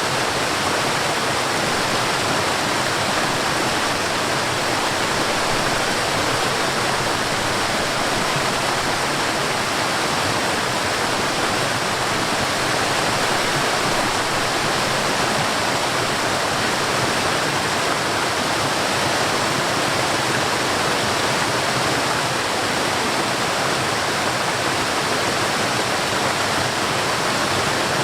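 Forest waterfall: water falling and splashing in a steady, even rush with no change in level.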